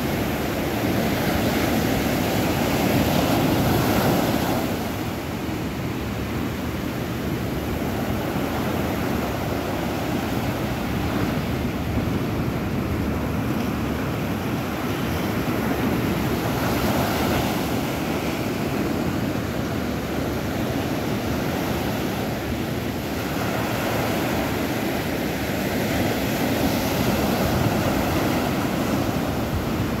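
Small ocean waves breaking and washing up onto a sandy beach: a continuous surf noise that swells and eases as each wave breaks.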